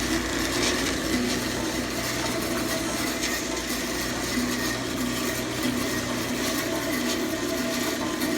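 Delta band saw converted for metal cutting, its electric motor driving the blade through a salvaged washing-machine gearbox, running with a steady hum and whir.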